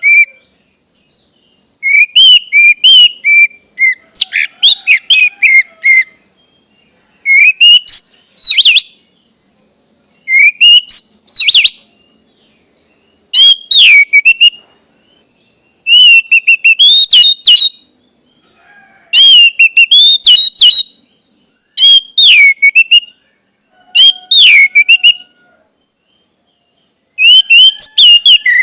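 Orange-headed thrush singing: loud, repeated phrases of quick whistled notes that rise and fall in pitch, one phrase every two to three seconds.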